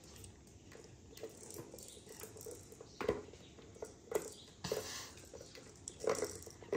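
Light, scattered taps and knocks from a kitten batting at a pink plastic tiered cat ball-track toy, its balls moving in the track, with soft paw patter on the floor.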